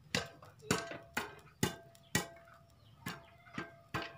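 Popcorn kernels popping inside a closed double-sided pan: about eight sharp pops at irregular intervals, the last kernels still popping as the batch nears done.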